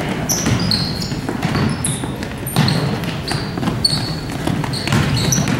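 Basketball players' sneakers squeaking on a hardwood gym floor again and again, with a basketball bouncing and a low murmur of voices underneath.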